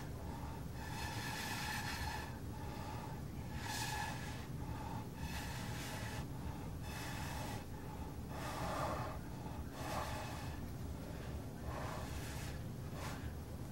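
A person blowing in short, hard puffs of breath, roughly one a second, onto wet epoxy resin to push the white into the blue.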